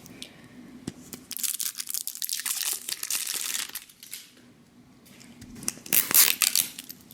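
Wrapper of a blind-bag toy egg crinkling and tearing as it is opened by hand. It comes in two spells: one starting about a second in and lasting about three seconds, and a shorter, louder one near the end.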